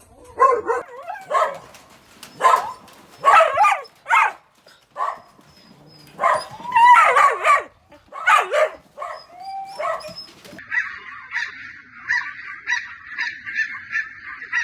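Several dogs barking and yelping in irregular overlapping bursts. About ten seconds in, this changes to a quicker, even run of high-pitched yaps, about three a second.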